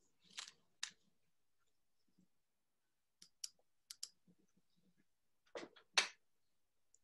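Faint sniffs and breaths through the nose into hands cupped over the face, with scattered small clicks. There are two short breaths near the start, a run of thin clicks in the middle, and two longer, louder sniffs near the end. The hands carry essential oil that is being breathed in.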